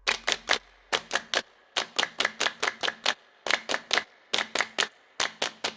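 Sharp clicks in quick groups of three or four, a group about every second, like typewriter keystrokes.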